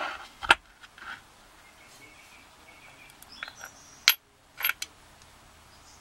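Small metal lock parts being handled: a few sharp clicks and knocks as a disassembled padlock's brass core and steel body are picked up and set against a wooden tray, the loudest about half a second in and about four seconds in.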